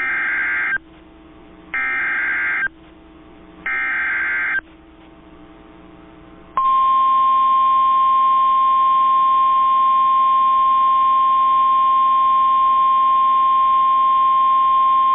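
NOAA Weather Radio EAS alert for a tornado warning: three SAME header data bursts, each a harsh buzzy tone about a second long, spaced about two seconds apart. About six and a half seconds in, the steady single-pitch 1050 Hz warning alarm tone starts and holds.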